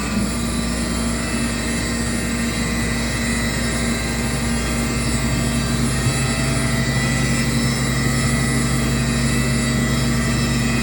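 CNC router running steadily while machining a wooden plank door, a constant machine drone with a steady low hum that grows a little stronger about four seconds in.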